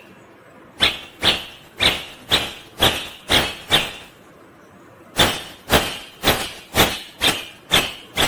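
Indian ringneck parakeet giving harsh, evenly repeated squawks, about two a second, in two runs with a pause of about a second and a half between them.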